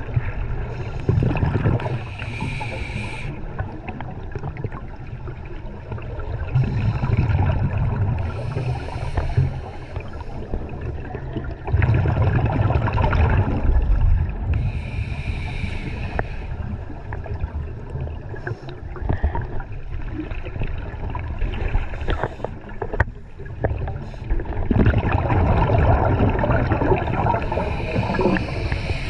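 A scuba diver's regulator exhausting bubbles, heard underwater through the camera housing. It comes as four long bubbling bursts several seconds apart, one per exhaled breath, over a low steady rumble.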